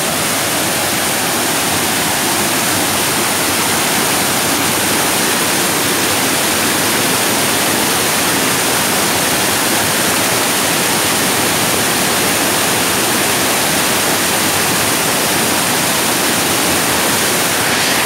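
Waterfall cascading over stepped rock ledges: a steady, loud rush of white water, unbroken throughout.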